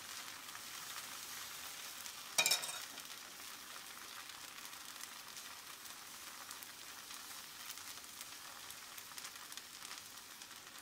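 Thin semolina and rice-flour dosa batter sizzling steadily on a hot oiled tawa over a high flame as it is ladled on in a lacy layer. A single sharp clink about two and a half seconds in.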